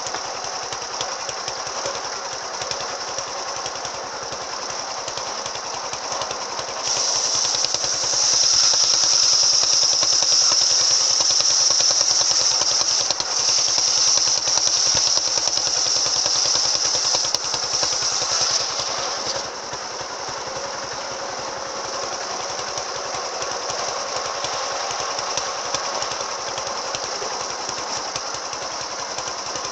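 Circular saw rig with an AKM saw blade running steadily over a rapid, even low pulse. About seven seconds in, it gets louder with a high, hissing whine as the blade bites into the wood for about twelve seconds, then it falls back to the steady free-running sound.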